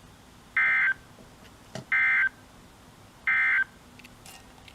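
Emergency Alert System SAME digital data: three short, identical, screechy bursts of warbling two-tone data, evenly spaced about a second and a third apart. Bursts this short, sent in threes after a warning message, are the end-of-message code that closes the alert.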